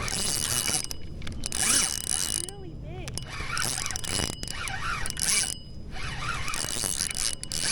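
Spinning reel's drag clicking in surges of about a second as a hooked redfish pulls line off against it.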